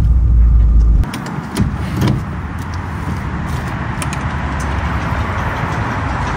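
A van's engine running, a loud low rumble heard from inside the cab, which cuts off abruptly about a second in. Then a steady rushing hiss of fuel flowing from a pump nozzle into the van's tank, with a few clicks.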